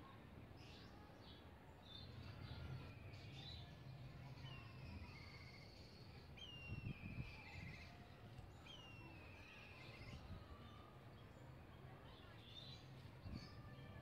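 Black kites calling: three faint, high whistles that fall in pitch and end in a quavering trill, about two seconds apart, with scattered fainter chirps over a steady low hum.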